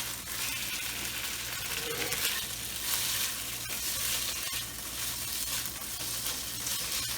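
Jumbo shrimp sizzling in hot oil in a wok while being stirred, with a few sharp clicks against the pan. The shrimp are being cooked to about half done.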